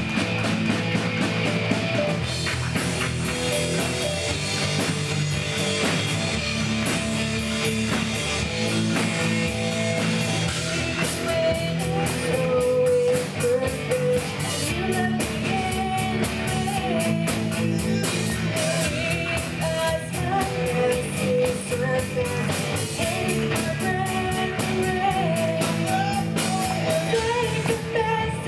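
A live church band plays an original worship song in a rock style, with guitar and drum kit and a singer's voice over them.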